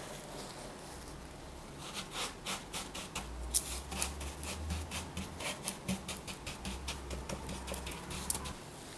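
Gloved hand pressing and patting damp rock salt in a plastic tub: a run of irregular crunching scrapes, several a second, starting about two seconds in.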